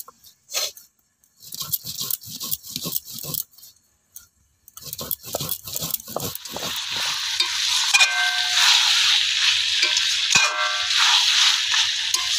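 Whole spices (cloves, cardamom, cinnamon and cumin) being ground on a stone slab with a stone roller (shil-nora): a run of short rubbing strokes with a pause in between. Past the middle it changes to chicken kosha sizzling steadily in oil in a kadai, stirred with a metal spatula that scrapes the pan now and then, at the stage where the oil separates from the spices.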